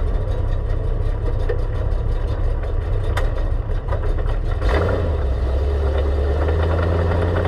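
Stock car's engine heard from inside the cockpit, running at low speed on the track. About three-quarters of the way through it picks up into a steadier, stronger drone as the throttle opens. A few sharp clicks come in over it.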